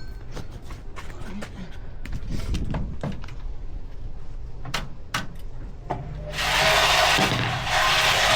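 Scattered clicks and knocks of handling at an old Hotpoint washing machine, then about six seconds in the machine starts running with a loud, steady rushing noise over a low hum.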